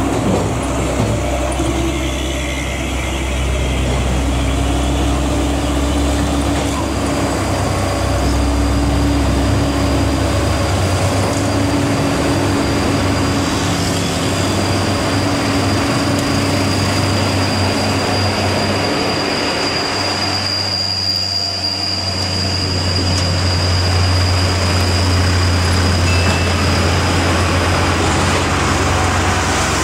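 Road traffic: engines of passing cars, motorbikes and trucks, a steady low drone that dips briefly about two-thirds of the way through, with a thin steady high whine above it.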